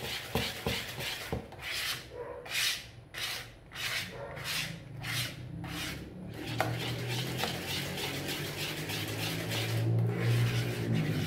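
A wire whisk beating cake batter in a plastic bowl, in wet swishing strokes at about two a second. A low steady hum comes in over the second half.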